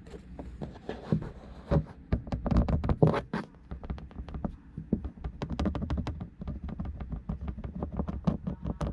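Irregular clicks and knocks over a low steady rumble, typical of a rattle in a Honda N-VAN's dashboard heard from inside the cabin.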